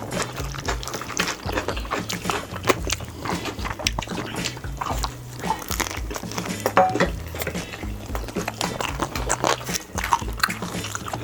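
Background music with a repeating bass line, under close-miked eating sounds: many quick clicks of chewing.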